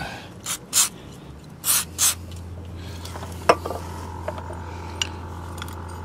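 Aerosol can of WD-40 sprayed in four short hissing bursts, followed by a single sharp click about three and a half seconds in.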